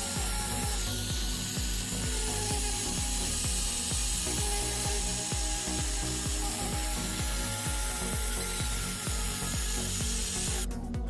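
Makita angle grinder running with a sanding disc pressed against a rusty steel knife blade, the disc rubbing and scraping as it grinds off the rust. The sound cuts to music just before the end.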